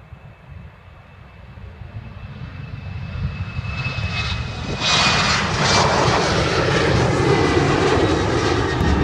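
Airliner's engines passing close by, growing steadily louder and becoming loud about five seconds in, with a thin whine that slowly falls in pitch as it goes past.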